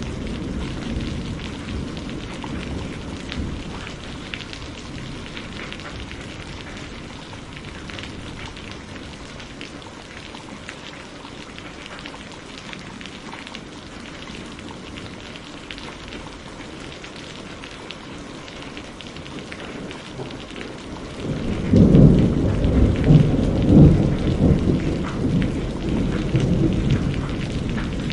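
Thunderstorm: steady rain falling, with a roll of thunder dying away in the first few seconds and a loud, long rumble of thunder breaking in about three-quarters of the way through.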